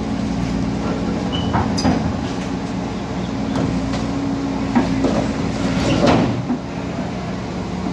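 Volvo crawler excavator's diesel engine running steadily under load as it climbs onto a low-bed truck, with a few metallic squeaks and knocks from the machine, the loudest a short squeal about six seconds in.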